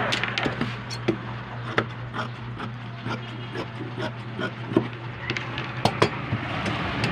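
Tailor's shears cutting through cotton trouser fabric on a wooden table: irregular sharp snips and clicks, a few louder near the end.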